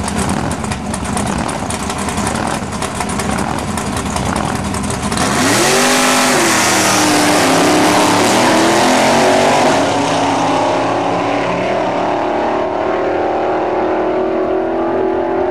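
Powerful engine running with a rough, rapid rumble, then revving up sharply about five seconds in and holding at high revs, easing back slightly a few seconds later.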